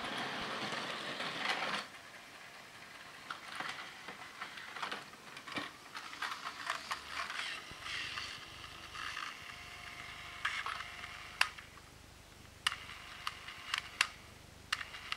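Plarail 0 Series Shinkansen toy train running on plastic track, its small motor and wheels going steadily, stopping abruptly about two seconds in. Then scattered clicks and rustling as the toy train is handled, with several sharp clicks in the second half.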